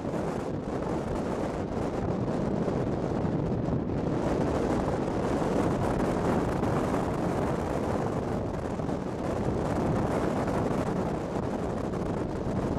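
Wind buffeting the camera's microphone: a steady, rumbling rush with no let-up.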